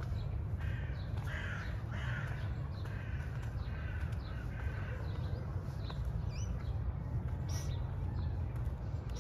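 A bird giving a quick run of harsh calls over the first three seconds or so, then a few short high chirps later, over a steady low rumble.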